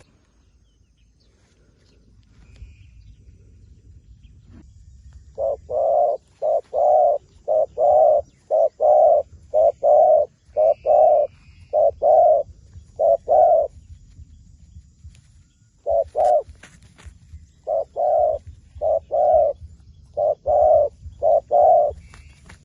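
Dove cooing: a run of short coos at about two a second, a pause of about two seconds, then a second run. A faint low rumble lies beneath the coos.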